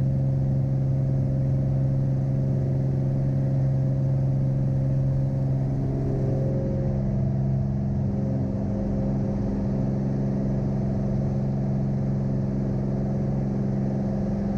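Cirrus single-engine piston aircraft's engine and propeller droning steadily at high power, heard inside the cockpit during the night takeoff and climb-out.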